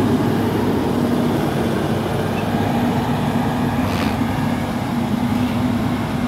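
Caterpillar 140K motor grader's diesel engine running steadily under load as the machine pushes and spreads asphalt mix with its blade.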